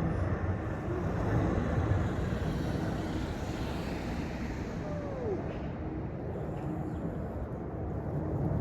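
Steady low outdoor rumble, with one faint, short, falling meow from a cat about five seconds in.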